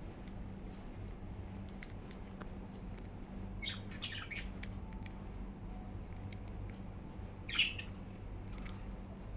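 Budgerigars calling with a few short chirps, a cluster about four seconds in and a louder squawk at about seven and a half seconds, among scattered small clicks. A steady low hum runs underneath.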